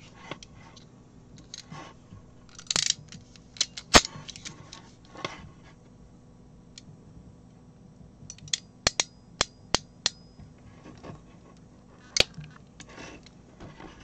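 Scattered sharp clicks and clatter from an RJ45 crimping tool and plastic modular connectors being handled, with a quick run of about five clicks a little past the middle.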